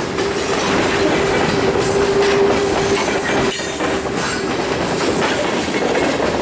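Freight train rolling past, loud and steady, with a steady tone that holds for about the first three and a half seconds and then fades.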